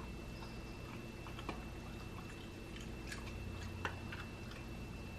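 German shepherd puppy crunching crushed ice: faint, scattered crunches and clicks, the sharpest about a second and a half, three seconds and four seconds in. A steady low hum and a thin, steady high tone run underneath.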